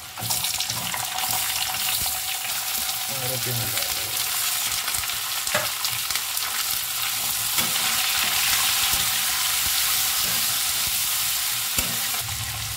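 Sliced onions going into hot oil in a metal kadhai and frying, the sizzle starting suddenly as they drop in and running on loud and steady. A metal spatula stirs through them, knocking against the pan a couple of times.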